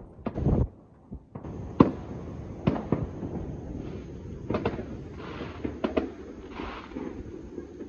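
Far-off fireworks and firecrackers going off across a city: irregular bangs and pops over a continuous rumble of distant explosions, the sharpest bang about two seconds in. A couple of brief crackling hisses come in the second half.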